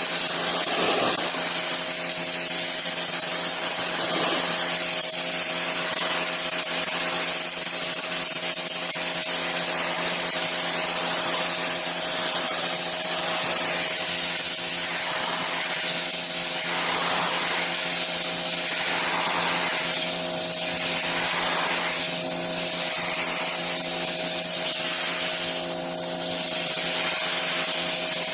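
Stanley SHP2000 electric pressure washer running steadily: a constant motor-pump hum under the loud hiss of its high-pressure water spray, which swells and eases every second or two.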